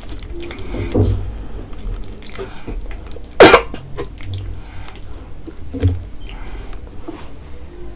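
Close-miked eating sounds: a person tearing a soft, sauce-covered malai chaap roll by hand and chewing, with small wet clicks. One short, loud burst about three and a half seconds in is the loudest sound.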